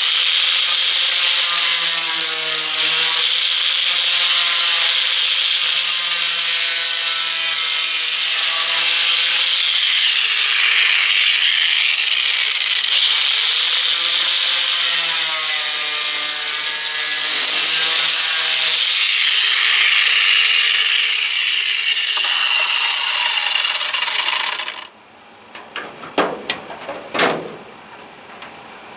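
Electric angle grinder running under load as it grinds back the edges of a rectangular vent opening cut in a shed wall, its motor pitch wavering as the disc bites. It shuts off suddenly about 25 seconds in, followed by a few knocks and rattles as the vent grille is set into the opening.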